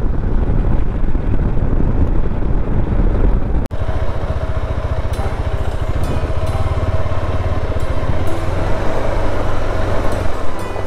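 Motorcycle engine running as the bike is ridden, with a steady low pulsing from the engine. It cuts out for an instant about a third of the way in, and after that the engine runs more evenly as the bike slows on a dirt track.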